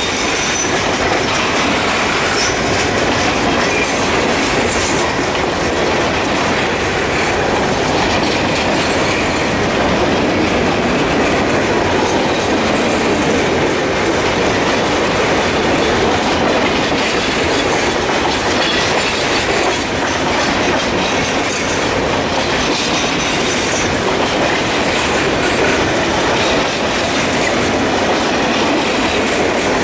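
Freight train of open-top hopper cars rolling past close by: a steady rumble and clatter of steel wheels on the rails.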